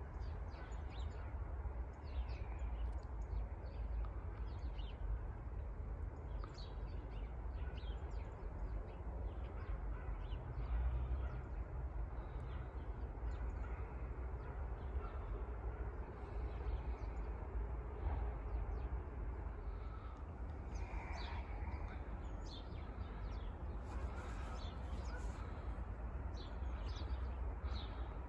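Crows cawing, with other birds calling now and then, over a steady low rumble; the calls get busier in the last third.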